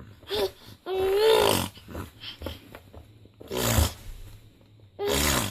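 An 8-month-old baby making strange, funny vocal noises: a few short pitched sounds, then harsh, breathy bursts, the last one falling in pitch near the end.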